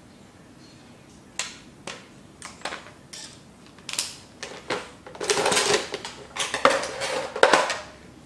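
Fishing tackle and plastic packaging handled on a concrete floor: scattered clicks and rattles, turning into denser crinkling and clattering from about five seconds in.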